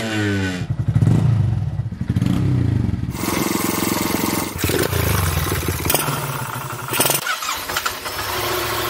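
Motorcycle engines in a series of short cut-together clips: revving, running and accelerating, the engine note rising and falling and changing abruptly several times as one clip gives way to the next.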